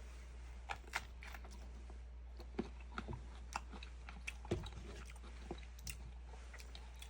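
Mouth biting and chewing mango: irregular short smacks and crunches, a few a second, over a steady low hum.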